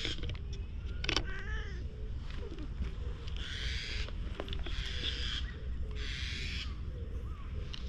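Repeated short, scratchy rustles as a cat rolls on a rough asphalt path, over a steady low wind rumble on the microphone, with a brief wavering animal call about a second in.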